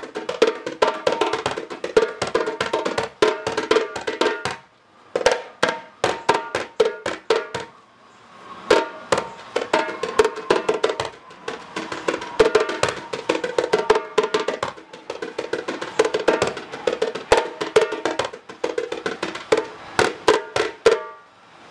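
Djembe played with bare hands in a fast, dense rhythm of ringing strokes and sharp slaps, with short breaks about four and a half seconds in and again around eight seconds.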